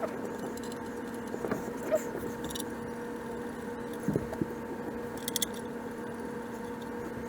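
A few light metallic clinks and knocks of tools and engine parts being handled, over a steady electrical-sounding hum.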